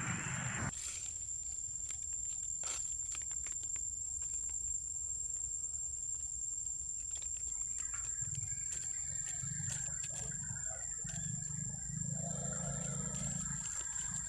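Long-tailed macaques: a loud call that cuts off abruptly under a second in, then soft scattered clicks and faint low sounds, over a steady high-pitched tone.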